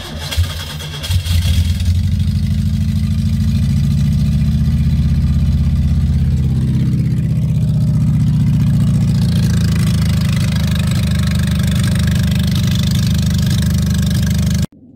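Škoda 120's rear-mounted four-cylinder engine catching on a cold start and then running loud and steady with no muffler, its exhaust open just past the manifold downpipes. The sound cuts off suddenly near the end.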